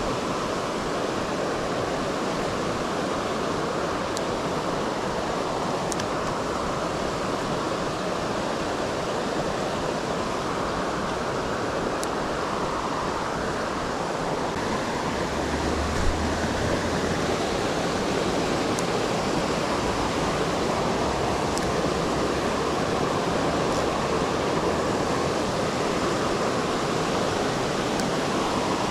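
Shallow river rushing steadily over stones and riffles. A brief low bump comes about halfway through, and a few faint ticks are scattered over the water noise.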